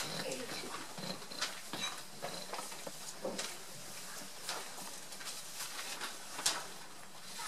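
Quiet room noise before a piano piece begins: scattered soft rustles, shuffles and small knocks from the pianist and listeners settling, with no music yet.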